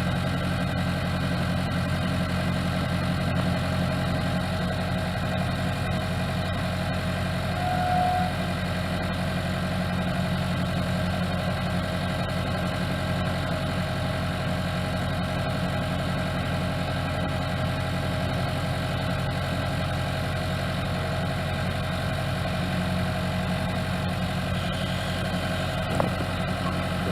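Case skid steer engine idling steadily, with a brief higher tone about eight seconds in.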